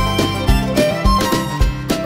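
Background music with a steady beat of about two beats a second under a string melody.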